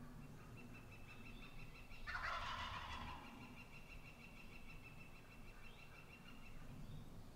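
A wild turkey gobbler gobbles once, a loud rattling gobble about two seconds in that lasts about a second. A long, high, steady trill runs faintly behind it.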